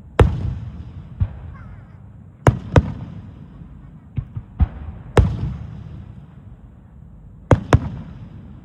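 Aerial firework shells bursting in a starmine display: about nine sharp bangs, several in quick pairs, spread across the eight seconds, each followed by a rolling echo.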